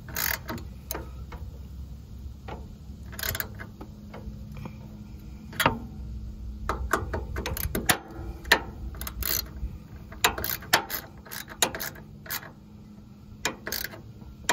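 Small socket ratchet clicking in irregular strokes as a nut is tightened on a mower-deck bracket bolt; the clicks come closer together in the second half.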